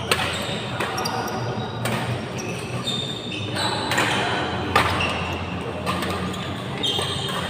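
Ball-game hits in a large, echoing hall: a sharp hit roughly once a second, with short high squeaks between them and voices in the background.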